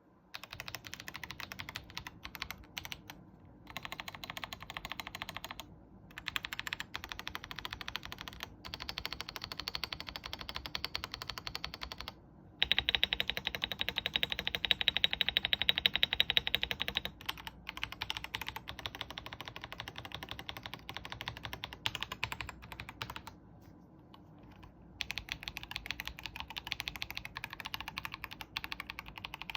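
Typing on a stock DAREU A87 Pro mechanical keyboard with Golden Violet switches: fast, dense key clacks in runs broken by short pauses. About halfway through comes a louder, faster stretch of several seconds.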